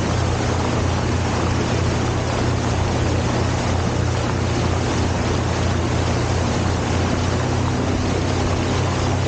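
Motorboat's outboard engine running at a steady cruising speed, a constant low hum under a rushing hiss of water and wind.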